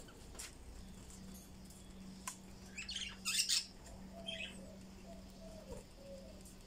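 Caged budgerigars chirping: a couple of short bursts of high chirps about halfway through, then fainter lower notes, over a steady low hum.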